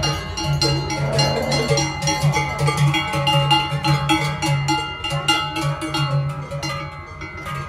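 Cowbells on parading Brown Swiss cows clanging continuously: many overlapping, irregular strikes, each ringing on.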